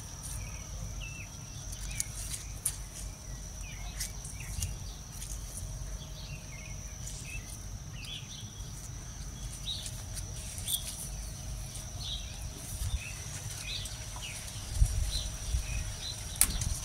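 Outdoor garden ambience: small birds chirping on and off over a steady, high-pitched insect hum, with a low rumble throughout. Two louder thumps come near the end.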